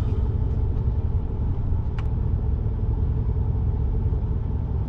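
Pickup truck moving slowly, a steady low rumble of engine and tyres heard from inside the cab, with a single sharp click about two seconds in.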